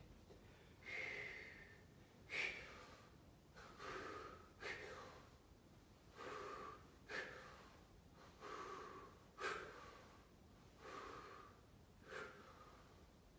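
A man breathing audibly in a controlled rhythm, about ten breaths in pairs every two and a half seconds: a softer, longer breath followed by a short one with a sharp start. The breathing is paced with the movement: out on the push, in on the pull.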